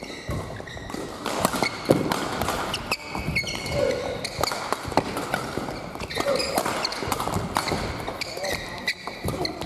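A badminton doubles rally: sharp racket strikes on the shuttlecock at irregular intervals, mixed with short squeaks of shoes on the court floor.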